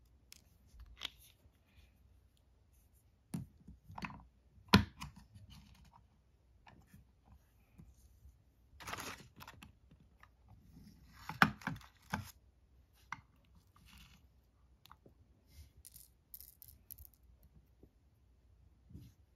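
Close handling sounds of paper crafting: scattered sharp clicks, taps and short rustles as a glue stick is worked on a paper wreath and sequins are picked from a plastic case. The sharpest click comes about five seconds in, and a cluster of clicks and rustles comes around eleven to twelve seconds in.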